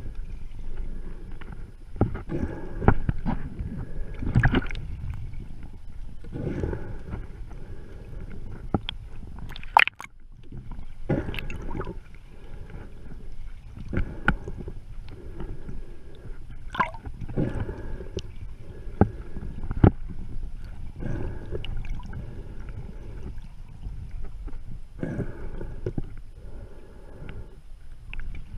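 Muffled seawater sloshing and gurgling, heard from a camera held just under the surface, with irregular swishing surges every second or two and a few sharp knocks.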